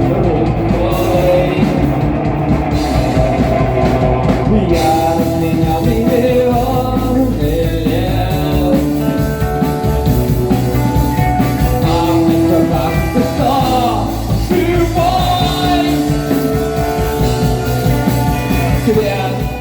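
Rock band music with no lyrics sung, a melodic lead line over bass and drums; the sound grows brighter about five seconds in.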